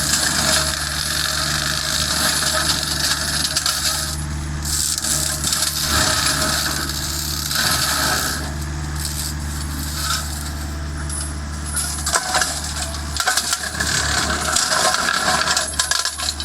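Excavator-mounted hydraulic flail mulching head shredding brush and wood, heard as irregular bursts of shredding and crackling noise over the steady hum of the excavator's engine. The engine note changes about twelve seconds in.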